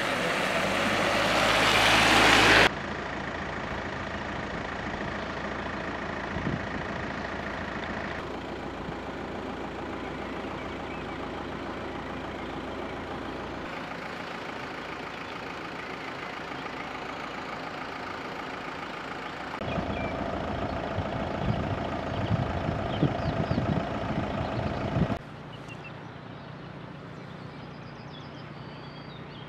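A car's tyres swishing and splashing through shallow floodwater over a road, the rush of water growing louder as the car approaches, cut off suddenly about three seconds in. After that, steady outdoor background noise that changes at each cut.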